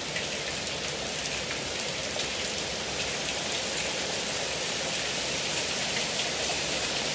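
Heavy rain mixed with hail pelting down steadily, with scattered sharp ticks of hailstones striking.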